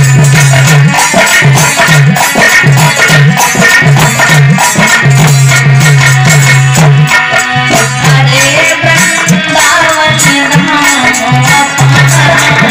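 Instrumental music of a Hindi devotional bhajan: a sustained low note over steady rhythmic percussion, with no singing.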